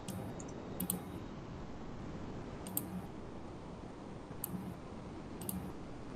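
A handful of faint, sharp computer clicks, about five, spaced a second or two apart, over a steady low hiss.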